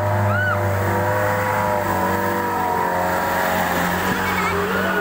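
Light dump truck's diesel engine running steadily as the truck drives through floodwater, its pitch drifting slightly, with water churning around the wheels.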